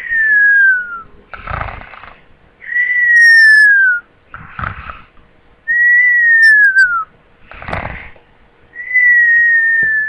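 A person snoring, each short rasping snore followed by a long high whistle that slides down in pitch, repeating about every three seconds.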